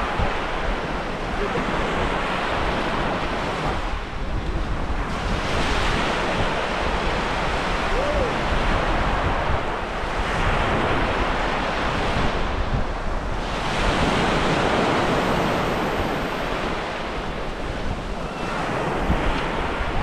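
Sea waves breaking and washing over a pebble shore, the surf swelling and easing every few seconds.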